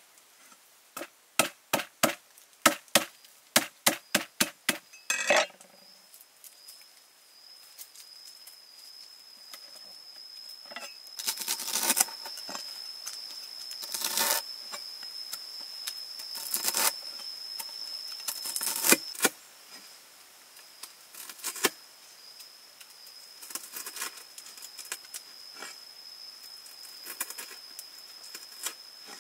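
Heavy steel cleaver chopping lemongrass stalks on a wooden board: a quick run of about a dozen sharp knocks, then slower, louder crunching cuts a few seconds apart. A steady high insect drone runs behind.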